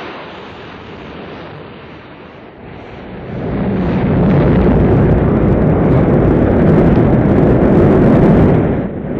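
A rocket's engines firing at launch: a low rumbling noise that swells sharply about three seconds in, then holds loud and steady.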